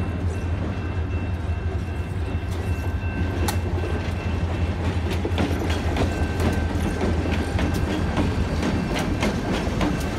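Freight train rolling past a grade crossing, its wheels clicking over rail joints and the crossing, the clicks coming thicker from about halfway, over the steady low rumble of its diesel locomotive.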